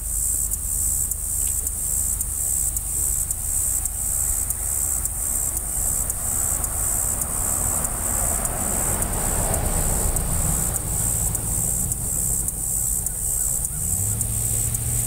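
Diesel-electric locomotives of an approaching, still unseen freight train, led by a GE ES40DC, running with a low steady rumble that swells in the middle and steps up in pitch near the end. A steady high buzz runs over it throughout.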